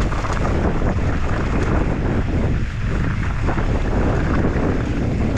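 Wind rushing over the microphone of a downhill mountain bike at speed, with a constant rattle and crunch of the tyres and bike running over a rough, rocky trail.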